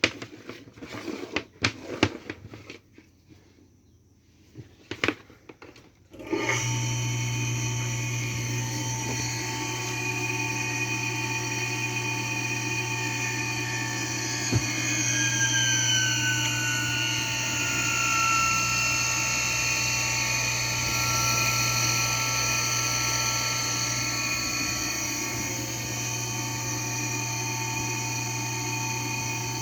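A few clicks and knocks, then about six seconds in a Kawamoto N3-256SH well pump's electric motor starts and runs steadily with a low hum and several whining tones, one of which slides lower midway. The seller reports this motor as making an abnormal noise.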